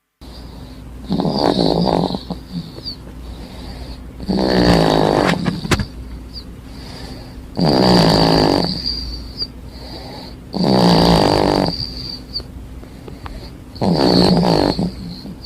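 A four-and-a-half-month-old baby snoring in sleep: five rattly snores about three seconds apart, each lasting about a second, over a steady low hum.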